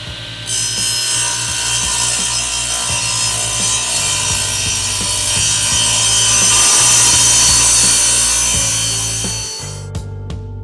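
A power tool working wood, a steady hissing noise that starts about half a second in, builds and then fades out near the end, over background music.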